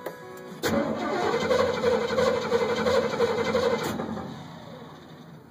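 Starter cranking a 1979 Pontiac Trans Am's V8 with the ignition disabled for a compression test. The engine turns over steadily without firing for about three seconds, starting just under a second in, then stops and fades out.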